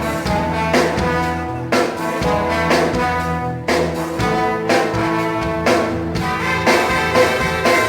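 Band and orchestra with a brass section playing an instrumental passage of a gospel song, horns holding chords over a steady rhythm.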